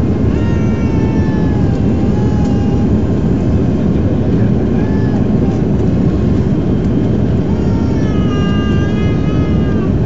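Loud, steady cabin noise of a Dornier 328 airliner on final approach to land, engines and airflow running together. Whining engine tones slide up and down in pitch about half a second in, and again near the end.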